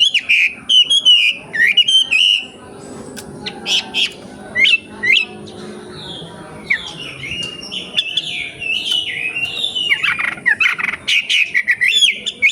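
Wambi songbird singing: a fast run of high chirps and whistled notes, thinning out for a few seconds in the middle before turning busy again.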